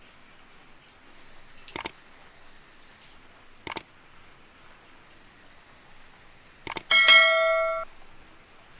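A few sharp clicks, then a short bright metallic ring with several tones about seven seconds in, lasting under a second and cut off abruptly.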